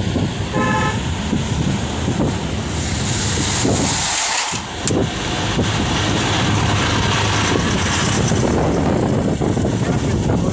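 Steady road and wind noise from a moving car, with a short vehicle horn toot about half a second in, then the rush of a container truck being passed close alongside.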